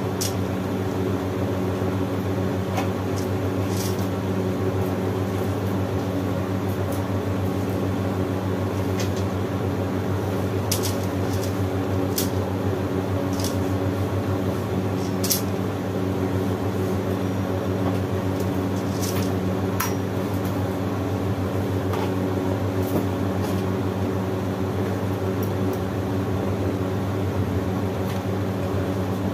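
A steady, unchanging machine hum with a low pitched drone, with a few light clicks and taps scattered through it.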